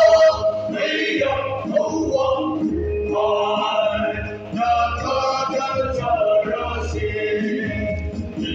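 A men's choir singing together through microphones and a PA system, the voices blending in several parts.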